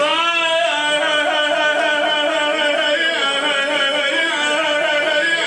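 A man singing a long, drawn-out melismatic vowel in Iraqi lament style. The note rises at the start, is held with small wavering ornaments, dips briefly about three seconds in, then carries on.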